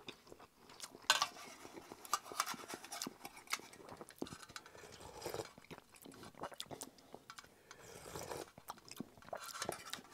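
A person eating instant ramen noodles: several short slurps and chewing, with light clinks of a titanium utensil against a metal mess-kit pot scattered throughout.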